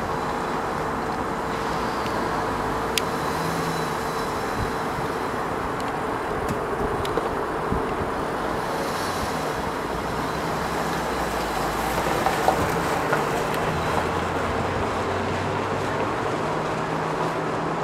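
Steady outdoor background noise with a low, shifting hum like distant road traffic, and a few faint clicks.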